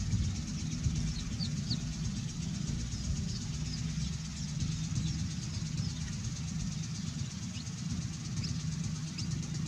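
Steady low outdoor rumble with a few faint, short bird chirps.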